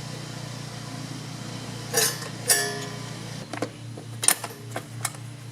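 Sharp metallic clinks and clicks of tools and small engine parts being handled while a lawn mower engine is put back together, over a steady low hum.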